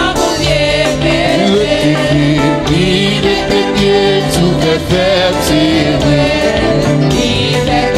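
Haitian Creole gospel praise song: a band playing with a steady beat, with voices singing over it.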